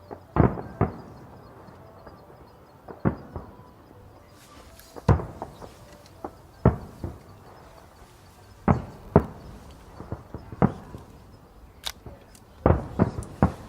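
Fireworks shells bursting overhead: single booms at irregular gaps of one to two seconds, then a quick run of bursts near the end.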